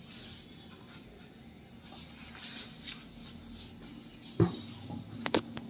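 Handling noise around a surgical foot switch in its packaging: soft rustling of the tray and papers, then a sharp knock about four and a half seconds in and two quick clicks just after five seconds.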